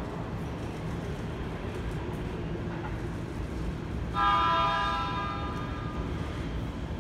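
Keikyu electric train's horn sounding once about four seconds in: a single sudden tone that holds for about a second and then fades. A steady low background noise runs underneath.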